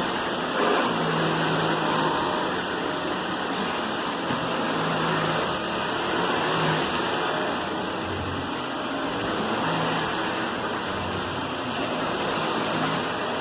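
Dyson Ball Animal 2 upright vacuum cleaner running steadily, a constant whooshing motor noise with a low hum that shifts a little as it moves.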